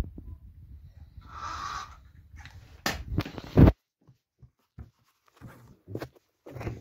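Secondhand Scalextric slot car running round a plastic track, going unevenly in short noisy bursts, with a loud knock about three and a half seconds in. The car is long unrun and unserviced.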